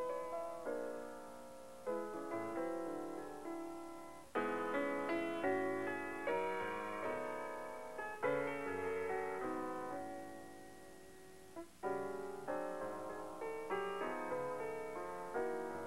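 Solo piano music: notes struck one after another and left to fade, with a brief pause about three-quarters of the way through before the playing resumes.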